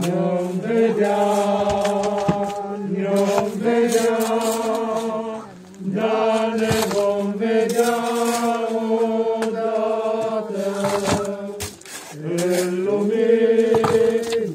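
Slow funeral chant sung with long held notes, the singing pausing briefly about five and a half seconds in and again near twelve seconds.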